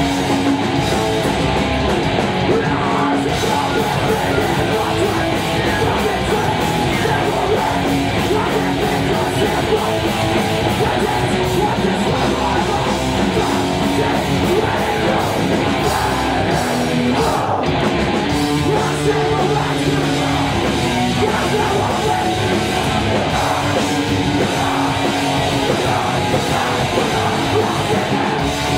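Hardcore punk band playing loud and live: distorted electric guitars, bass and pounding drums, with a shouted lead vocal.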